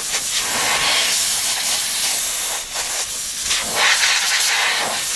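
Compressed-air blow gun hissing steadily into a lawnmower's fuel tank, blowing air through the tank and out of the fuel hose to flush out dirt and debris.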